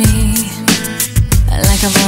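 Studio recording of a pop song playing: a drum beat with bass and held melodic notes.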